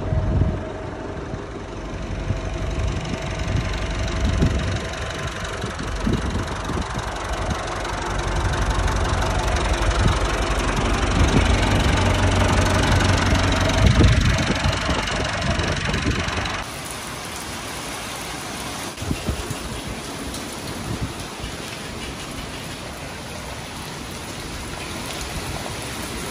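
Massey Ferguson 290 tractor's diesel engine running, briefly louder about fourteen seconds in. Then, about sixteen seconds in, an abrupt change to heavy rain falling on a concrete yard.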